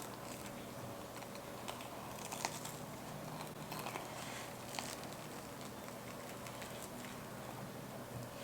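Close-miked eating of a reheated cheese corn dog: faint crisp crunches, clicks and chewing, mostly in the first five seconds.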